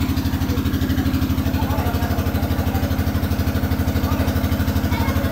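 An engine idling steadily, with an even low pulse of about ten beats a second.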